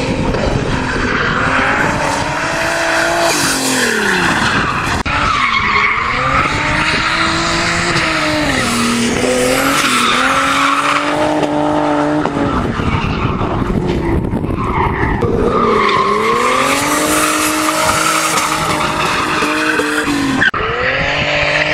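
BMW saloon drifting: the engine revs rise and fall again and again through the slides, with tyres squealing. The sound changes abruptly twice as one pass gives way to the next.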